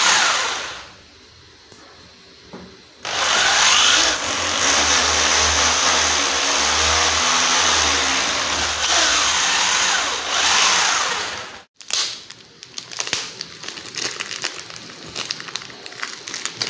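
AEG hammer drill boring a screw hole into the wall: a short burst at the start, then a steady run of about eight seconds before it stops. After that, a plastic bag crinkling and rustling as it is handled.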